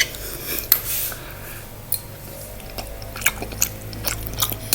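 A person chewing a mouthful of hot dog close to the microphone, with scattered small clicks and light taps, over a steady low hum.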